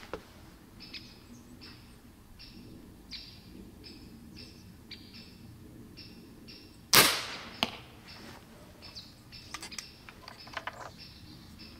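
A single shot from a low-power (7.5-joule) airgun launching an arrow from a launch tube: one sharp crack with a short tail about seven seconds in, then a fainter knock about half a second later as the arrow strikes the target. Birds chirp throughout.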